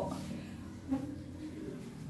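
Quiet room tone with a steady low hum, broken by one brief faint sound about a second in.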